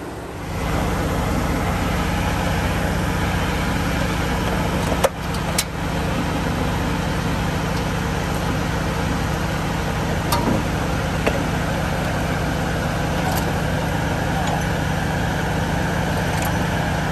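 A truck engine running steadily at low speed; it comes up about half a second in, and a few short sharp clicks and knocks sound over it.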